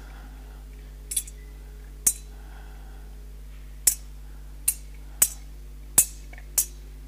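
Sharp clinks and knocks, about seven at uneven intervals, as metal altar vessels are handled on the altar during the preparation of the gifts, over a steady low electrical hum.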